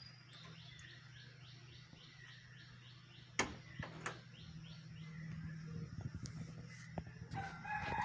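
A bird calling a fast run of short, repeated high notes, about four a second, for about three seconds, over a steady low hum; two sharp knocks follow, just past three seconds and at four seconds in.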